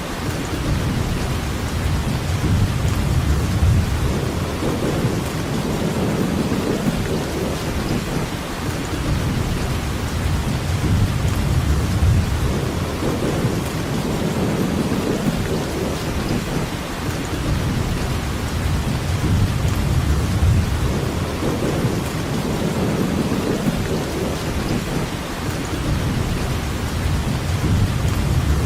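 Steady heavy rainfall, an even hiss, under a low rolling rumble that swells and fades every several seconds.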